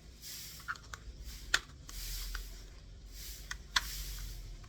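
Handling of small plastic parts: soft rustling with a few sharp plastic clicks, two of them louder, about two seconds apart.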